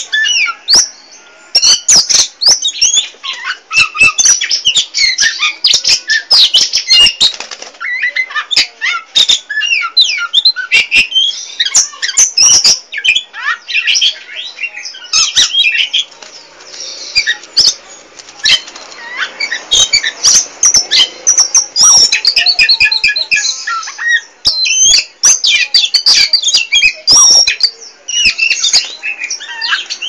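Caged oriental magpie-robin (kacer) in full song, pouring out a continuous, varied stream of rapid whistles and chattering notes with hardly a pause. Frequent sharp clicks run through the song.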